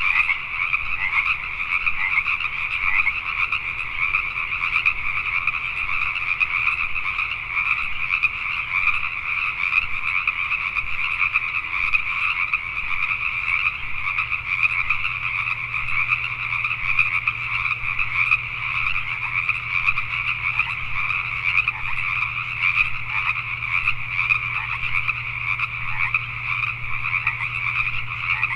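A dense chorus of Pacific tree frogs (Pacific chorus frogs), many males calling over one another without a break.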